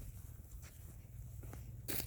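Footsteps on the forest floor: scattered faint crackles and one sharper crunch near the end, over a low steady rumble.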